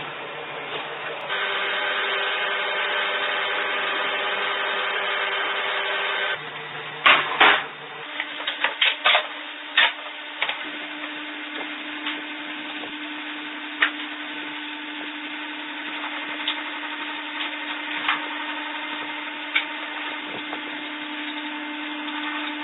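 Electric woodworking power tool running with a steady motor hum. A few seconds in it drops away, several sharp knocks follow, and then a lower steady hum runs on with occasional clicks and taps.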